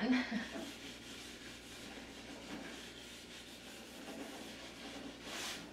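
Hand rubbing on the wooden bed of a wagon: a steady scratchy rubbing, as in light hand sanding to help the wood take stain, with one short louder rush of noise near the end.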